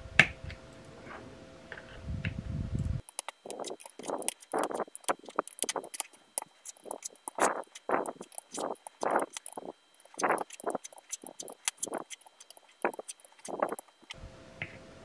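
Steel screwdriver bits clicking and tapping as they are pushed one after another into the plastic slots of a DeWalt bit case. A single click comes just after the start, then a quick run of short clicks from about three seconds in until near the end.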